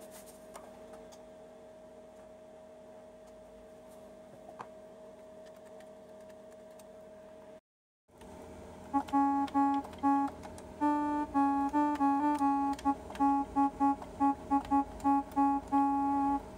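Casio DH-100 digital horn playing a run of about twenty short and held notes at full volume, after a faint steady hum and a brief dropout. The horn sounds properly again, its quartz crystal oscillator replaced.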